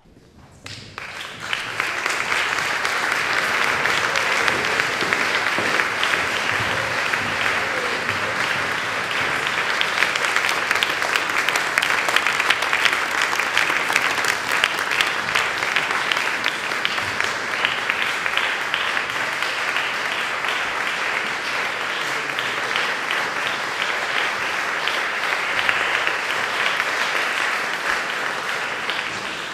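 Large audience applauding: dense, steady clapping that swells in over the first couple of seconds and eases off near the end.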